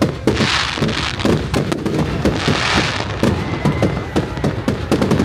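Fireworks display: a rapid barrage of bangs from aerial shells, several a second, with two swells of hissing about half a second and two and a half seconds in.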